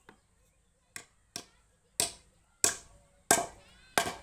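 A hammer striking wood: a light tap, then about six sharp blows roughly two-thirds of a second apart, growing louder, as pieces of a wooden joint are knocked together.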